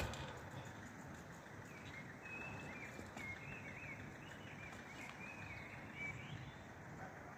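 Faint outdoor ambience with a bird twittering, a string of short, high chirps from about two to six seconds in. A brief click right at the start.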